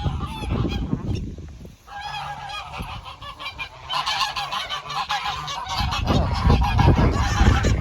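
A flock of geese honking, many calls overlapping, growing busier and louder about four seconds in.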